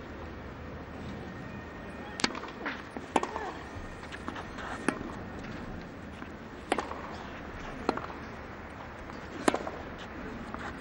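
Tennis rally: a serve, then a ball struck back and forth by rackets, a sharp pock every second or two, with fainter ball bounces in between.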